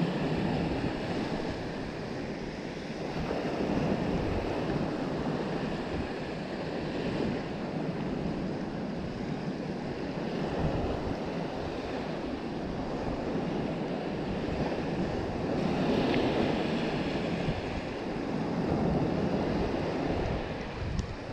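Small waves breaking and washing up a sandy beach, swelling and fading every few seconds, with wind buffeting the microphone.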